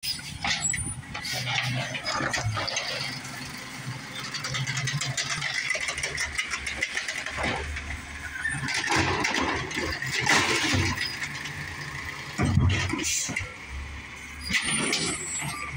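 Natural-gas garbage truck with an automated side-loader arm emptying a line of wheeled trash carts: the engine rises and falls as the hydraulic arm lifts and lowers the carts, with hissing, clattering and several bangs as the carts are tipped into the hopper and set back down.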